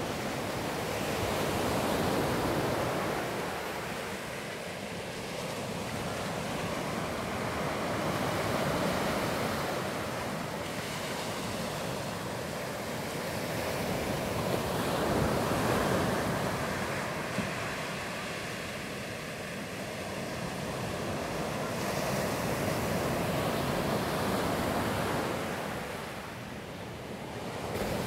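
Ocean surf breaking on a sandy beach, a steady wash of noise that swells and fades as each wave comes in every several seconds.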